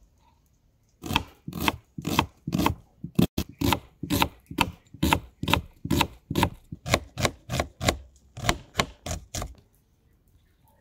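Kitchen knife cutting food on a wooden cutting board in an even rhythm of about two strokes a second, stopping near the end.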